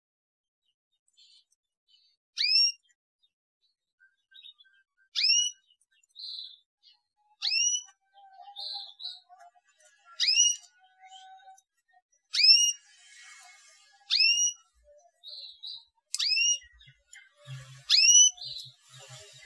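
A repeated 'cuit' chirp, the sweeping-up call played to stimulate young canaries to sing: eight identical short whistled chirps, one every two seconds or so. Softer short chirps fill the gaps from about a third of the way in.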